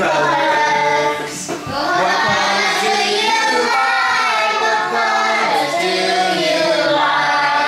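A children's song: singing voices held over music, continuing with only a short dip about a second and a half in.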